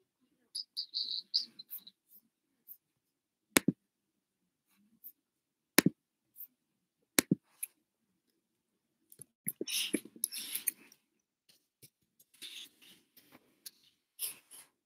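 Handling noise close to the microphone: a few sharp clicks or taps, and short spells of rustling, loudest a little past the middle.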